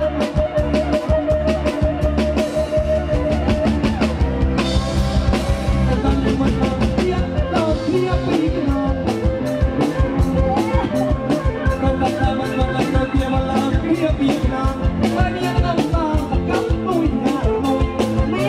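Live kantrum band playing amplified: a drum kit keeps a steady beat under electric instruments, with a voice singing over it.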